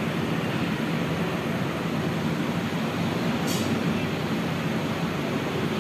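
Steady, even rushing background noise, with a faint brief click about three and a half seconds in.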